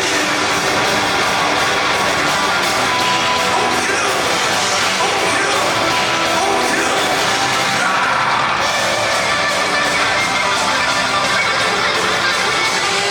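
Loud rock music playing steadily, in a heavy metal style.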